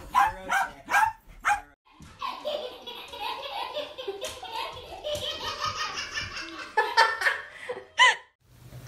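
Small dogs barking in quick, sharp barks, about five in the first two seconds, followed by a stretch of laughter.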